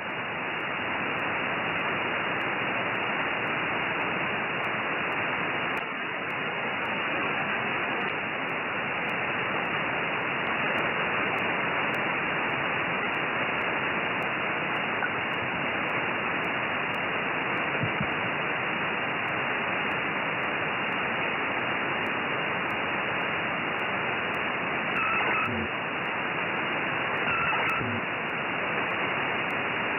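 Steady hiss of a single-sideband receiver tuned to the FO-29 satellite's 70 cm downlink, with no station in the passband. A couple of faint short tones come through near the end.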